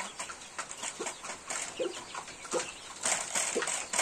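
Chickens clucking in short, soft notes over many small clicks of pecking and scratching at grain feed, with louder rustling about three seconds in.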